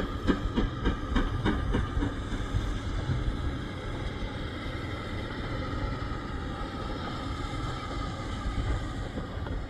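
Steam locomotive hauling a train, its exhaust chuffing about four beats a second, then stopping about two seconds in as steam is shut off. The train then drifts on with a steady rumble and a faint hiss.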